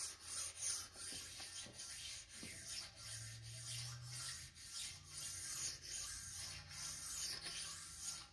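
Abrasive sharpening stone rubbed by hand in repeated back-and-forth strokes along the hardened V-way of a Monarch lathe bed, a dry scraping hiss, stoning down raised burrs on the ways.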